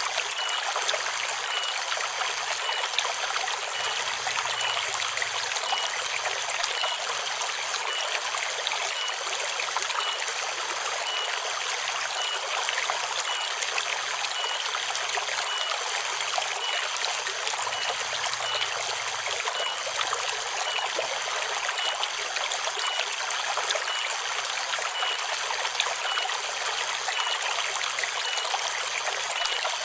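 River water running steadily through a forest stream, a constant trickling rush. Under it a faint cicada call pulses evenly, a little more than once a second.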